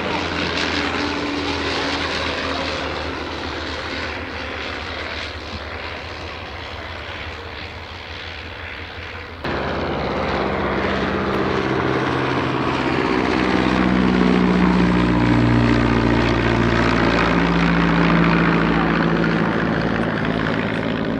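Aero engines of First World War biplanes in flight. For the first nine seconds a Sopwith Camel's rotary engine drones and slowly fades. Then, after an abrupt cut, the S.E.5a's Wolseley Viper V8 runs steadily and louder as it passes.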